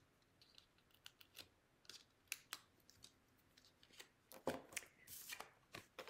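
Faint scattered clicks and light rustling of cardstock pieces being handled and pressed together, busier near the end with a longer rustle about five seconds in.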